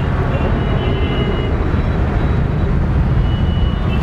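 Steady low engine rumble of roadside traffic, with a constant low hum.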